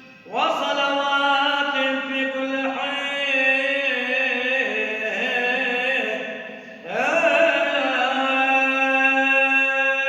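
A male voice chanting an Arabic Christian vigil prayer in long held notes. One phrase begins about half a second in and a second about seven seconds in.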